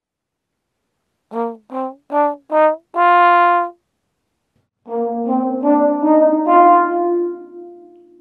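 Trombone playing a short rising run of five notes, the last one held, dry and stopping dead in an anechoic chamber. It then plays the same run in a reverberant room, where each note rings on into the next and the last fades away slowly.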